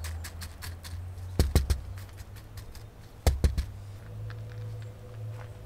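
Small gravel pebbles clicking as fingers settle top dressing around a seedling in a small plastic pot. Two louder double knocks come about a second and a half in and again about three seconds in.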